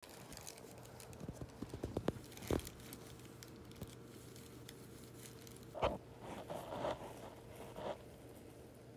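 A cat chewing and tugging at a plastic trash bag, the plastic crinkling and snapping: a run of sharp clicks in the first few seconds, then a cluster of louder rustles a little past halfway.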